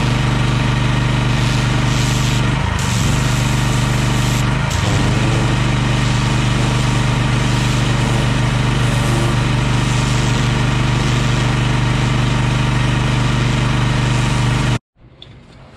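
Engine-driven pressure washer running steadily under load while its lance jets water onto block paving, a loud, even engine hum over the hiss of the spray. It stops abruptly near the end.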